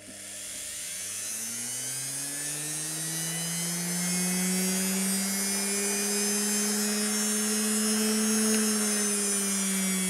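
Washing machine universal (brushed) motor running on 220 V AC through a TRIAC dimmer. It spins up, its hum rising in pitch over the first few seconds as the speed knob is turned up. It then holds near half speed and creeps higher, before easing off slightly near the end.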